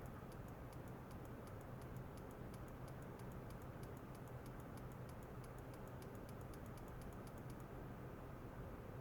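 Rapid, irregular light ticking, about five clicks a second, over a steady low hum. The ticking stops about three-quarters of the way through, leaving the hum.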